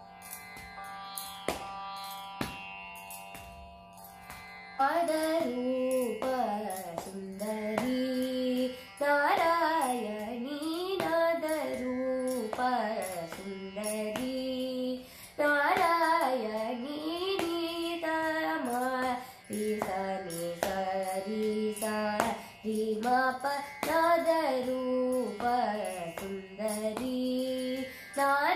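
A girl singing a Carnatic varnam in raga Andolika, her voice sliding and bending through gamaka ornaments over a steady drone. For about the first five seconds only the drone and a few light taps are heard; then the voice comes in.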